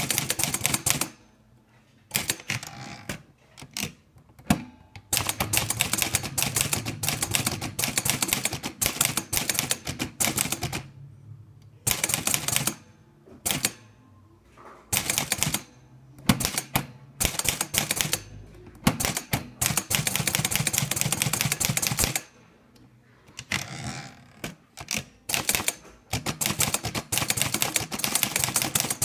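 Olivetti Lettera 32 manual portable typewriter being typed on: fast runs of key strikes broken by short pauses, with a carriage return to the next line partway through.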